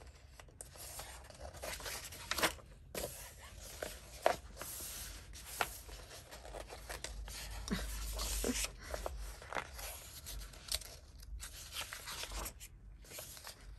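Paper pages of a paperback coloring book rustling and scraping as hands smooth them flat and turn them, in uneven swells with a few sharper crinkles.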